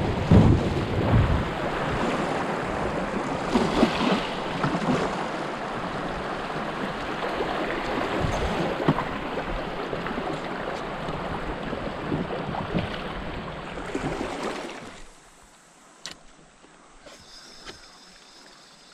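Shallow creek riffle water rushing and splashing around a kayak as it drifts through, with a few low thumps along the way. About fifteen seconds in, the rushing stops suddenly and only a much quieter calm-water background remains.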